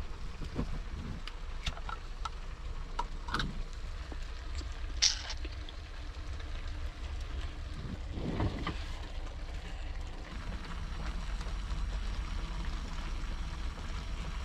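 Cooking in a pan: scattered clicks and knocks of a utensil against the pan, with two louder scrapes, about five and eight seconds in, over a steady low rumble.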